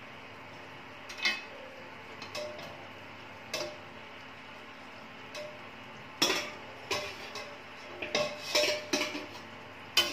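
Metal spatula clinking and scraping against a steel kadhai as lightly fried chicken pieces are lifted out and dropped into a steel bowl. A few single clinks at first, then a busier run of clanks and scrapes from about six seconds in.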